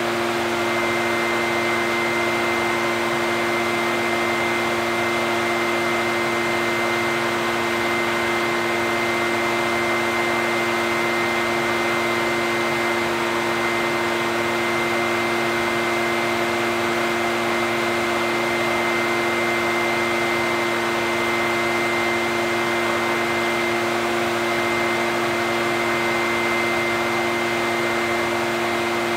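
Echo backpack leaf blower's two-stroke engine running at a steady speed: a constant rush of air with a steady hum and a thin high tone over it.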